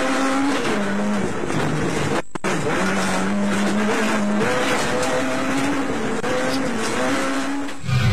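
Onboard sound of a Toyota rally car driven flat out on a gravel stage: the engine revs climb and drop back again and again as it shifts through the gears, over loud tyre and gravel noise. The sound cuts out for an instant about two seconds in.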